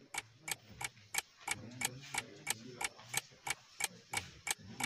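Clock-ticking sound effect: sharp, even ticks about three a second.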